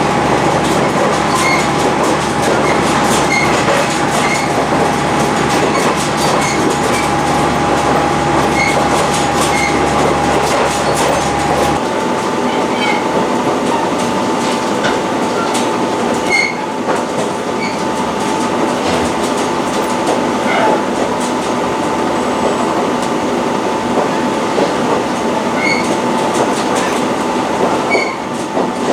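Interior running noise of a diesel railcar: a steady rumble with a held whine and occasional rail-joint clicks. About twelve seconds in, the low rumble drops away and the whine steps slightly higher in pitch.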